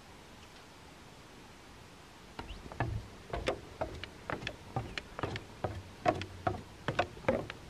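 Footsteps in sneakers going down wooden stairs: short hollow knocks on the boards, about two or three a second, starting a couple of seconds in after a quiet stretch.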